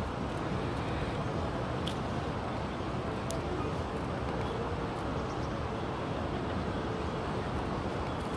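Steady low outdoor background noise without a break, with a couple of faint ticks in the first half.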